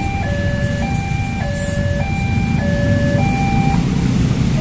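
Railway level-crossing warning alarm, an electronic signal alternating between a higher and a lower two-note tone about every half second, which stops near the end as the barriers lift. Underneath is the rumble of a crowd of idling motorcycle engines, growing louder as the traffic starts to move.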